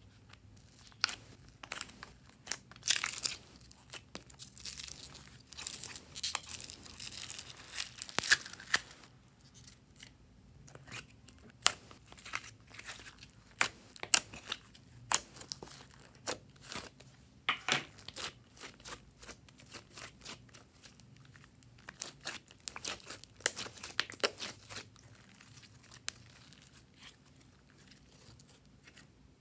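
Glossy slime being peeled off a plastic tray and handled: irregular sticky crackling and tearing with sharp clicks and pops, busiest through the first third and again shortly before the end.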